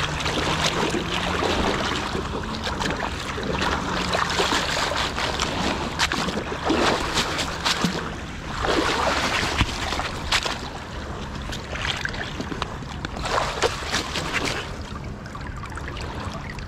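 Lake water washing and splashing at the shoreline, a continuous rush with several louder splashes.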